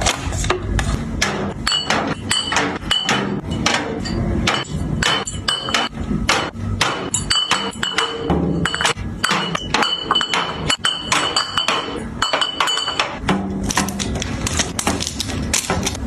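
Drink containers being set down one after another in a fridge and plastic storage bins, with quick knocks and taps throughout. In the middle, glass soda-water bottles clink against each other with a ringing tone.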